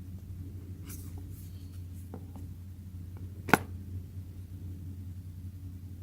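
Small clicks and taps of hand work on an opened phone, with one sharp click a little past halfway, over a steady low electrical hum.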